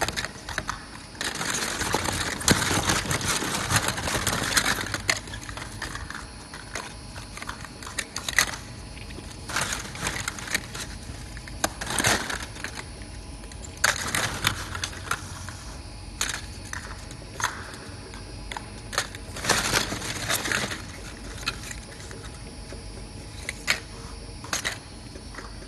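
Plastic container lids clicking and clattering against each other as they are handled in a cardboard box, with a longer spell of rustling clatter a couple of seconds in and scattered single clicks after.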